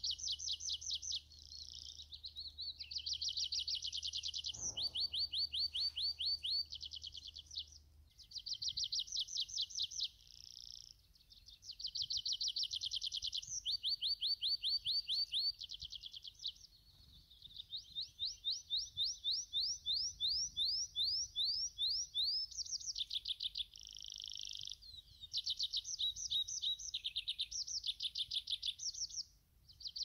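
Tree pipit singing: phrase after phrase of fast trills of repeated notes, some phrases made of longer sliding notes, with hardly a pause between them.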